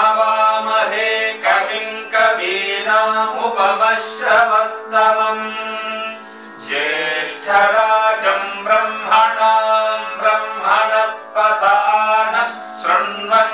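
Indian devotional music: a male voice chanting a melodic mantra over a steady drone, with a brief pause about halfway through.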